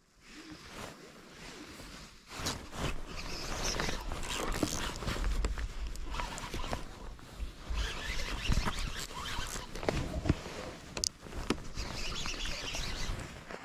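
Close handling noise from an angler working a baitcasting reel: rustling with repeated clicks and knocks, and low rumbles at times.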